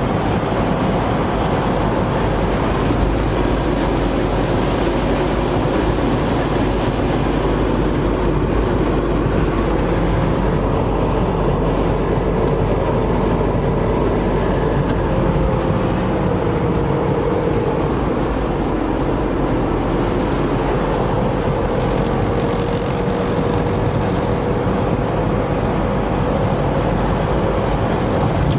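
Car driving steadily: continuous engine and road noise with a low hum that drifts slightly in pitch.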